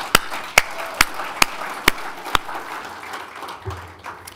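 Audience applauding, with loud single claps about twice a second close to the podium microphone from a man clapping along; the close claps stop about two and a half seconds in and the applause fades out near the end.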